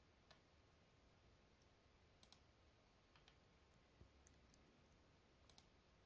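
Faint computer mouse clicks, a few single clicks and some in quick pairs, against near silence.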